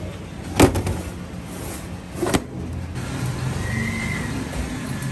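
Steady street-traffic rumble with two sharp knocks about two seconds apart, and a vehicle engine running more steadily from about three seconds in.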